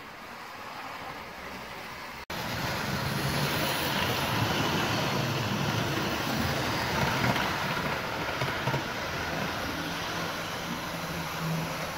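OO gauge model InterCity 125 (HST) train running on sectional track: a steady electric motor hum with wheels rumbling on the rails. The sound drops out briefly about two seconds in and comes back louder, and the low hum strengthens near the end as the train draws closer.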